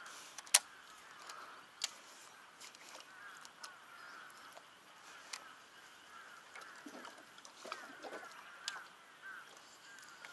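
Faint animal calls: many short chirps repeating throughout, and two lower, longer calls about seven and eight seconds in. A few sharp clicks sound over them, the loudest about half a second in.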